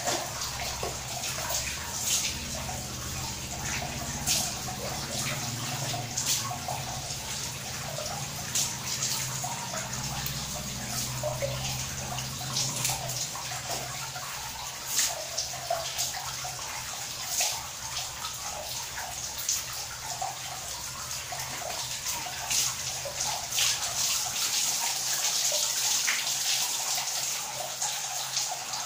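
Water splashing and pouring as a person washes for Islamic ablution (wudu), scooping water from a basin over hands, face and feet. Sharper splashes come every couple of seconds over a steady wash of running and dripping water, a little louder near the end.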